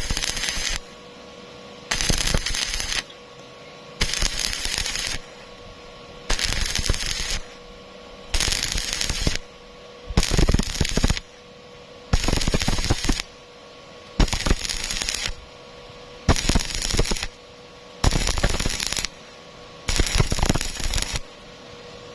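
Stick-welding arc crackling in about eleven short bursts of roughly a second each, one every two seconds: the arc struck and broken again and again in a stitch technique on thin square tube. A steady hum runs underneath.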